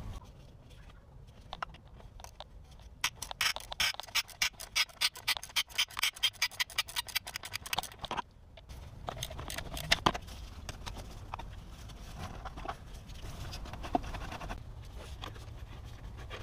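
Socket ratchet clicking in quick repeated strokes, several a second, for about five seconds while a bolt is worked loose in the engine bay, then stops. After it come scattered knocks and handling noises as parts and hoses are moved.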